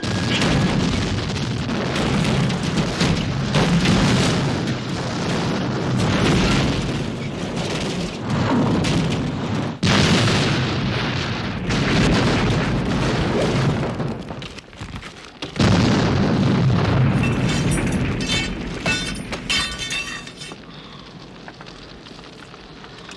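Sound-effect spacecraft crash: a run of heavy explosion booms and rumble, with a fresh loud blast about ten seconds in and another after a brief lull near the middle. It then breaks into crackling and fades to a low fiery rumble near the end.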